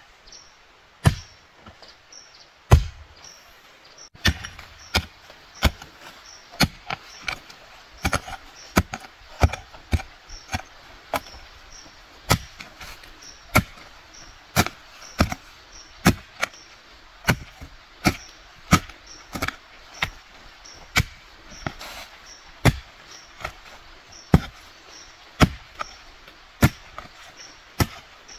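Hand hoe chopping into damp soil again and again, digging planting holes. Two heavy strikes come first, then a steady rhythm of roughly one and a half strokes a second from about four seconds in.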